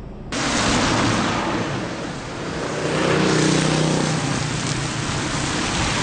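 Road traffic noise that cuts in suddenly just after the start, with a motor vehicle passing around three to four seconds in, its engine hum swelling and fading.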